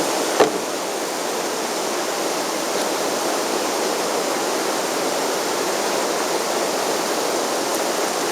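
Steady rushing of river water around a drifting kayak, with one sharp knock about half a second in.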